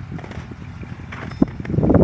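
Pickup truck engine running under load as it moves a travel trailer, with wind on the microphone. A sharp knock about one and a half seconds in.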